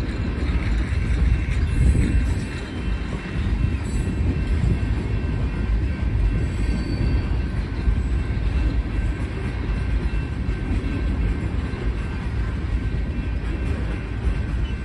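Tank cars of a freight train rolling past at a grade crossing: a steady rumble and clatter of wheels on the rails.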